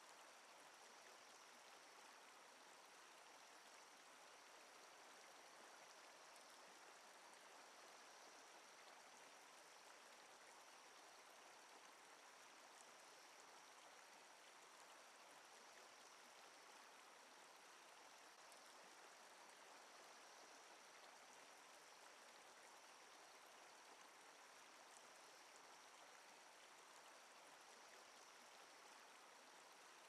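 Near silence: a faint, steady hiss with a faint high whine.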